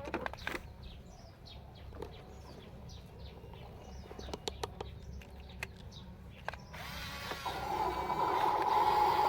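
Small birds chirping in short falling notes, with a few sharp plastic-like clicks. Near the end a radio-controlled toy construction vehicle's electric motor starts a steady whine that grows louder.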